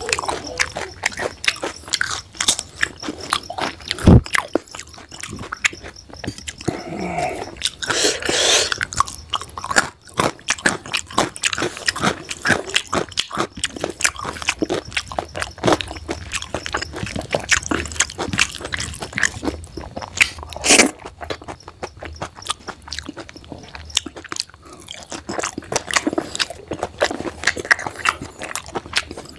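Close-miked mouth sounds of a person eating rice and curry: steady, irregular chewing with crunchy bites, and a couple of sharp loud clicks about 4 and 21 seconds in.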